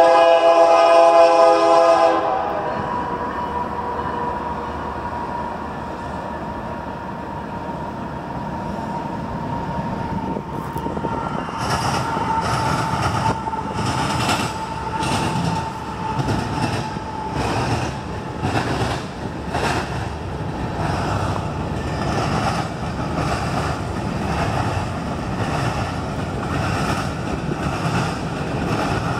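Canadian Pacific freight train at a grade crossing. The locomotive horn blast ends loudly in the first two seconds, while the crossing bell rings with a steady tone until about halfway through. From about twelve seconds in, the locomotive and tank cars roll past close by, their wheels clacking over the rail joints.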